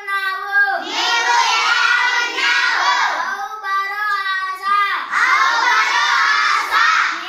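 Children's call-and-response chanting: one child calls out each line in a drawn-out sing-song, and the class answers it in unison, twice.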